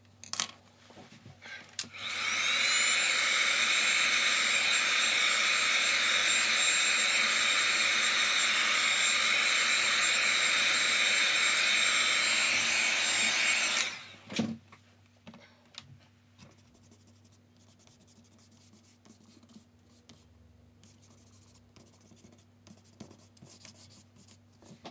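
Handheld hot-air blower drying wet watercolour paint: its whine rises as it starts about two seconds in, it runs steadily with a loud rush of air for about twelve seconds, then cuts off. Faint handling of paper follows.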